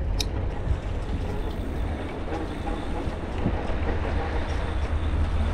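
Steady low rumble and hiss of wind and rolling noise on the microphone of a camera riding along on an e-bike, with one short click about a quarter second in.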